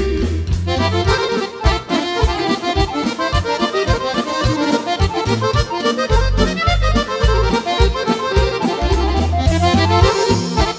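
Accordion playing a fast instrumental break of quick runs over keyboard accompaniment with a steady bass and beat, in Serbian folk style.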